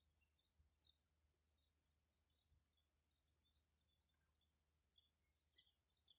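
Faint chirping of small songbirds in the background: many short, high calls, overlapping and continuous.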